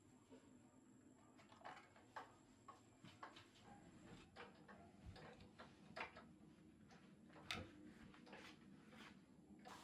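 Faint, irregular clicks and light taps over quiet room tone, about a dozen scattered through, the sharpest about seven and a half seconds in.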